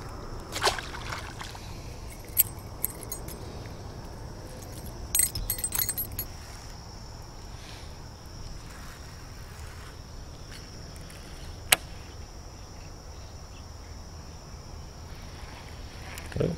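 Quiet outdoor ambience with a steady high-pitched insect drone, broken by a brief metallic jingle about five seconds in and a few single clicks, the sharpest near the end of the middle.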